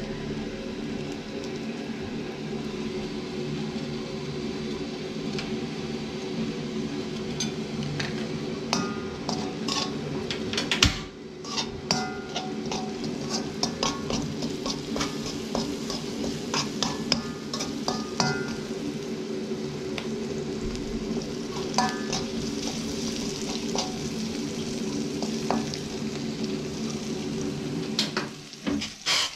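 A cooking utensil stirring food in a pan, scraping and clinking against the metal while the food sizzles, over a steady low hum. Some clinks ring briefly, and there is one louder clank about eleven seconds in.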